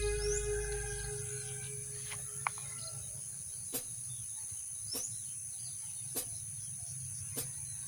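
Soft background music fades out, leaving rural morning ambience: steady high-pitched insect trilling with a couple of short rising bird chirps. Faint clicks come about once every second and a bit.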